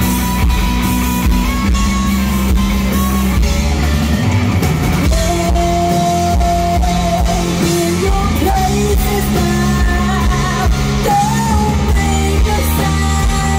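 Live rock band playing: two electric guitars, bass guitar and drum kit, with a woman singing into the microphone over them.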